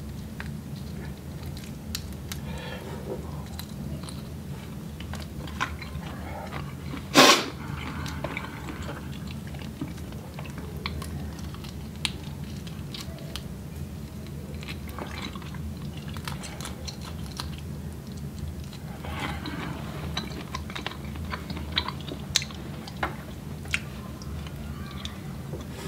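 Close-up chewing and mouth sounds of someone eating a seafood boil with their fingers: scattered small smacks and clicks, with one much louder sharp sound about seven seconds in. A steady low hum runs underneath.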